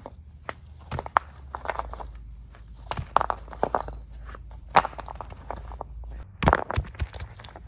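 Irregular crunching and rustling with sharp clicks, about one or two a second, over a steady low rumble.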